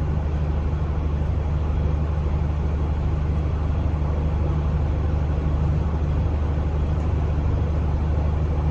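Steady low machine hum with a hiss above it, unchanging throughout.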